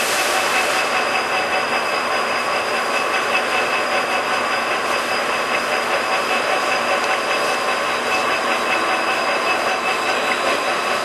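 Summit 36DC heavy-duty gap-bed engine lathe running under power, its 35 hp DC drive and gearing giving a steady mechanical running noise with a couple of high, even whining tones.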